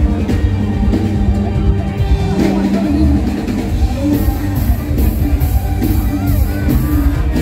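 Live mor lam band music played loud through the stage sound system, with heavy bass and a singer's voice. From about four seconds in, a steady high tapping beat runs at roughly two to three beats a second.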